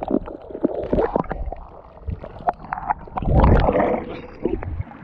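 Muffled underwater sound of shallow seawater around a submerged camera microphone: gurgling with scattered clicks and pops of moving water. About three and a half seconds in, a louder rush of water as the camera comes up through the surface.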